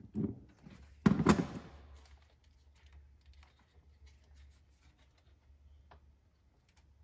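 Hands working hoses and connectors loose around an engine's intake manifold: a loud rattling clatter about a second in, then scattered faint clicks and taps.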